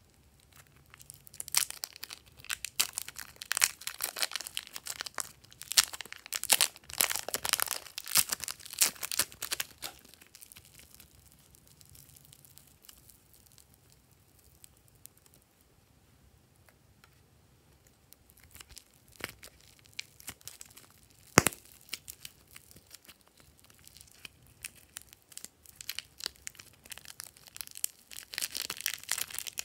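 Plastic wrapper of a packet of soft modelling clay crinkling and tearing as it is opened and the clay is pulled out, a dense crackle for several seconds. A quieter stretch follows with a few small clicks and one sharp snap, then crinkling again near the end as another clay packet is opened.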